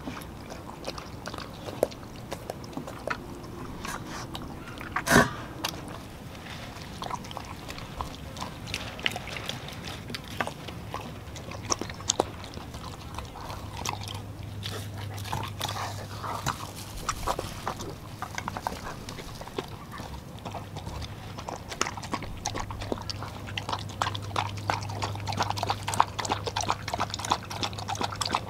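Dogs eating wet ground raw meat from a stainless steel bowl: close-up smacking, lapping and chewing, with teeth and tongue clicking against the metal, and one sharper knock about five seconds in. A steady low hum sits underneath from about twelve seconds in.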